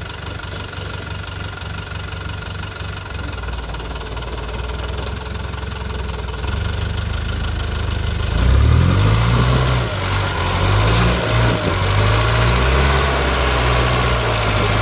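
Land Rover Defender 110's V8 engine running low and steady, then revving harder from about eight seconds in. Its pitch rises and falls several times as it works under load to lift the front wheel up over a rock step.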